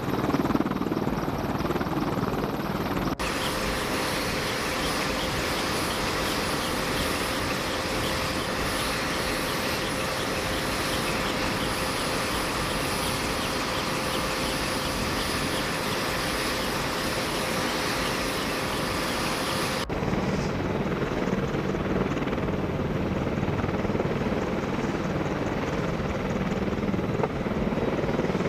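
AH-64 Apache attack helicopters running on the ground, rotors turning: a steady rush of rotor and twin-turbine engine noise. Through the middle stretch a high steady whine sits over it. The sound changes abruptly twice.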